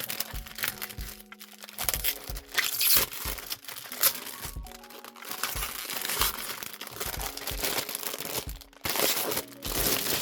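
Crinkling plastic shrink-wrap being peeled and torn off a sealed album, in repeated rustling bursts over soft background music.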